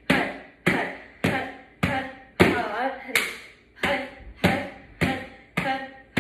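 Palms pounding a yoga mat on a wooden floor in a steady rhythm, a sharp slap about every 0.6 seconds.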